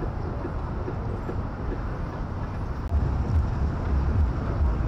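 Busy market street noise: a steady din with a low rumble that grows louder about three seconds in.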